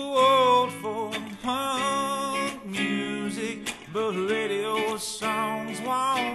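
Music: strummed acoustic guitar with a wordless melody line that bends and wavers in pitch above it.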